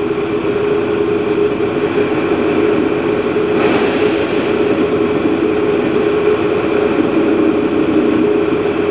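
PGO PMX 110cc scooter engine idling steadily while still cold and not fully warmed up on a damp morning, the condition that has been making it stall. A short swell of hiss comes in about three and a half seconds in.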